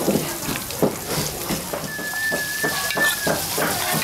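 A quick, irregular series of knocks, about three or four a second: ingredients (garlic, onions, tomatoes) being pounded for eel soup. A thin, steady high whistle sounds for about a second and a half in the middle.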